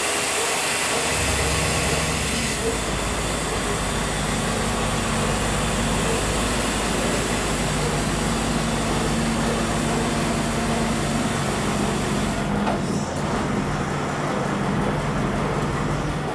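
A large engine running steadily at a constant speed, with an even low hum. A rushing noise over it drops away about three-quarters of the way through.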